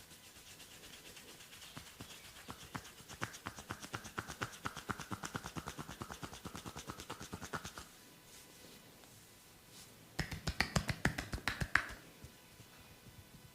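Rapid percussive massage strokes, hands striking in quick succession at about seven strikes a second. A long run is followed by a shorter, louder burst near the end.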